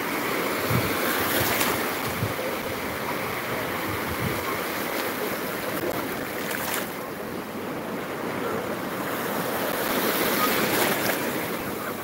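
Small Black Sea waves breaking and washing through the shallows in a steady rush of surf, which swells about a second in and again near the end as waves come through.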